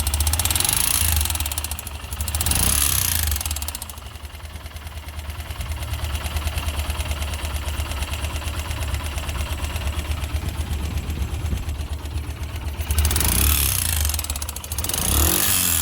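Yamaha YB motorcycle engine idling, revved up briefly at the start and again about two and a half seconds in, then held at a steady idle before two more short revs near the end. The engine is being run to show an unusual engine noise.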